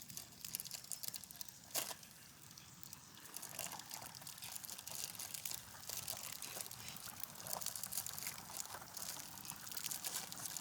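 Campfire crackling faintly, a dense patter of small pops and hiss that grows a little busier after about three seconds, with one sharper pop about two seconds in.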